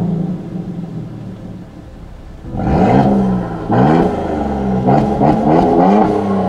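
Mercedes-Benz GL 400's twin-turbo V6, fitted with an aftermarket valved exhaust, idling steadily, then revved in a series of quick throttle blips from about two and a half seconds in, the exhaust note rising and falling with each blip.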